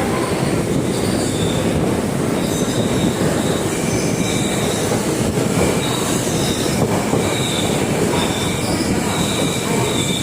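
Passenger train running on rails, with a steady rumble of wheels on track and high-pitched wheel squeal that keeps breaking in and dropping out.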